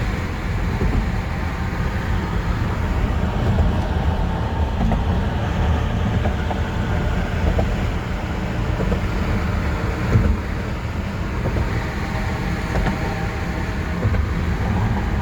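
Steady road and engine rumble inside a moving car's cabin, deep and even throughout.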